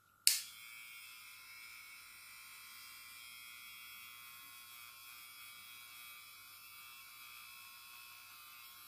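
Wahl Cordless Senior hair clipper motor running with its blade removed, free and unloaded, for an RPM check: a steady, even hum that starts with a click of the switch just after the start.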